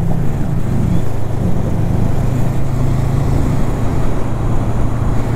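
Honda CB500X motorcycle's parallel-twin engine running at a steady highway cruising speed, a constant low hum under rushing wind noise.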